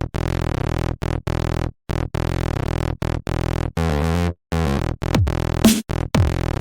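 Electronic background music: a chopped, rhythmic synthesizer pattern, with a kick drum coming in near the end.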